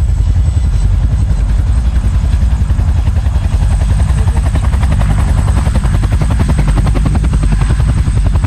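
Helicopter rotor blades chopping in a fast, steady rhythm over a low engine rumble, with a thin high whine above.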